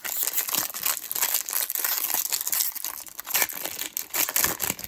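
Foil wrapper of a 2020 Bowman Draft baseball card hobby pack crinkling and tearing as it is opened, a dense run of crackles.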